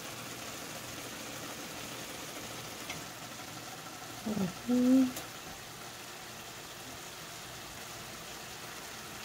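Shrimp simmering in a garlic butter sauce in a frying pan, a steady soft sizzle and bubbling. A brief wordless voice sound comes about four seconds in.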